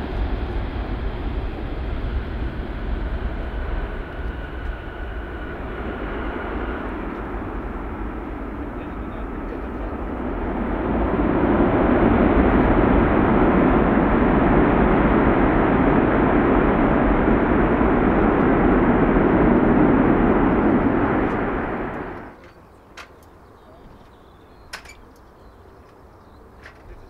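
Jet noise from a Boeing C-17 Globemaster III's four Pratt & Whitney F117 turbofans as it touches down and rolls out on the runway: a steady, heavy rush that grows louder about ten seconds in. It cuts off suddenly a little over twenty seconds in, leaving a much quieter background with a few faint ticks.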